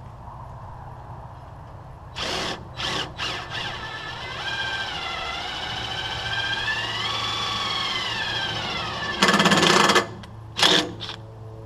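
A power tool running: a whine that rises and falls in pitch for several seconds, broken by short, loud, rough bursts, over a steady low hum.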